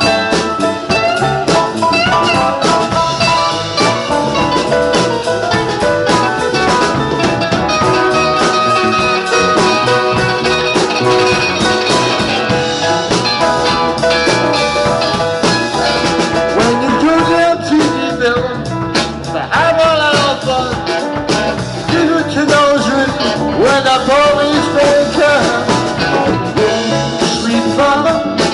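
Live band of electric guitars, electric bass, Nord Electro keyboard and drum kit playing a blues number, an instrumental passage with no vocals.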